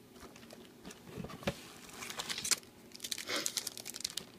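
Packaging crinkling and rustling in irregular bursts as craft-supply packets are handled and pulled from a box, with a soft knock about a second and a half in.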